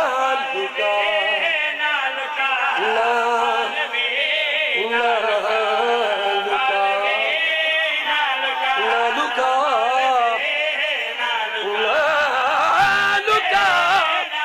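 A man's voice chanting a qaseeda, a devotional poem in Punjabi, in long, drawn-out melodic phrases with a wavering, ornamented pitch. A few low knocks sound near the end.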